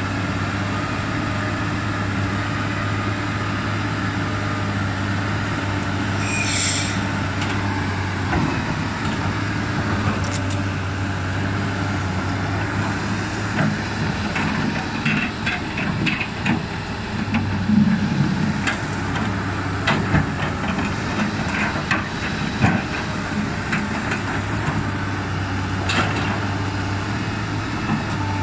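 Komatsu PC200 excavator's diesel engine running steadily as the machine works a pile of soil, with scattered knocks and clanks from about halfway through as the bucket moves earth.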